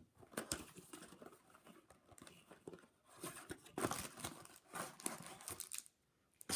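Trading-card box being opened by hand: irregular crinkling and tearing of its wrapping and cardboard, stopping about six seconds in.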